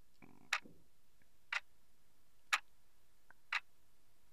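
Countdown-timer clock ticking sound effect, four short ticks evenly spaced one a second, marking the seconds left to answer.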